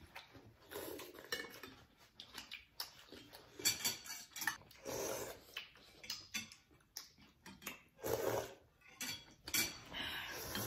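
People eating noodle soup: chopsticks and spoons clinking against bowls, with irregular slurping and mouth sounds from eating the noodles and broth.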